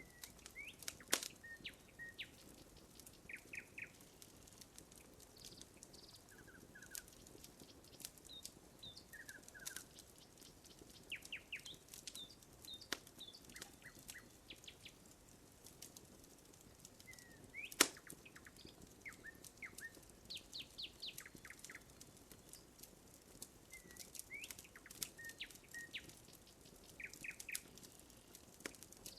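Wood campfire crackling, with scattered sharp pops; the loudest come about a second in and again about two-thirds of the way through. Small birds give short chirps and twitters throughout.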